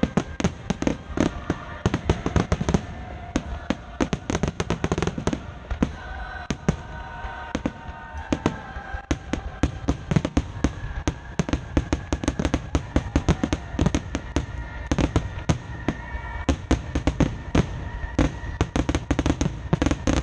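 Fireworks finale barrage: aerial shells bursting in rapid, overlapping succession, several bangs a second, with drawn-out whistling tones among the bangs.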